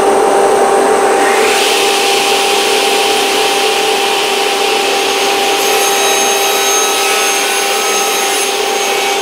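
Martin sliding table panel saw running with a steady hum, its blade cutting through a mahogany handle blank. The cut gets louder and brighter about a second and a half in.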